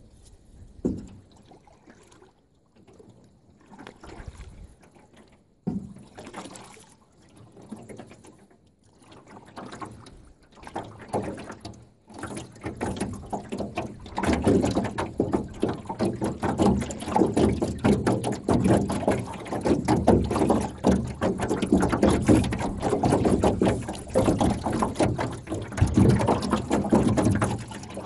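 Small boat on a breezy lake: soft paddle splashes every couple of seconds, then from about halfway a loud, continuous choppy rush of wind and water against the hull.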